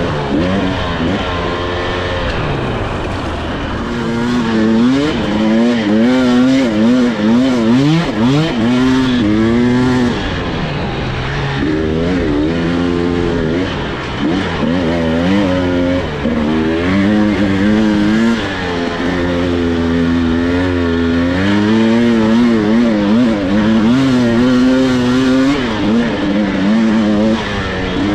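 Husqvarna TE300i 300cc two-stroke dirt bike engine being ridden hard, its revs rising and falling over and over as the throttle is worked.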